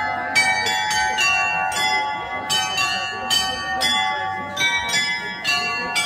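Tower glockenspiel of small bells playing a tune: struck notes of changing pitch, about two or three a second, each ringing on into the next.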